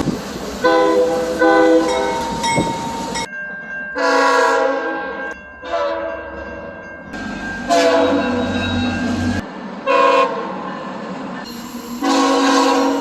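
Train air horns sounding a series of blasts, some short and some held for a second or more, each a chord of several tones. The sound cuts abruptly from one horn to another, the chord changing each time, with a low engine rumble under some of the blasts.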